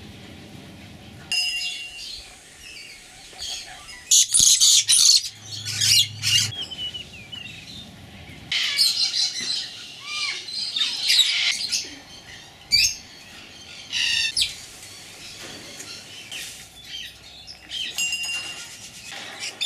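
Captive parrots and cockatoos calling in aviaries: repeated bursts of harsh, high-pitched screeching squawks mixed with shorter chirps and whistled notes. The loudest bursts come about four to six seconds in and again from about nine to twelve seconds.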